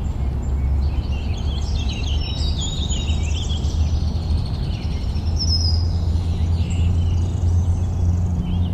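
Several birds chirping and singing in short, overlapping phrases, over a steady low rumble.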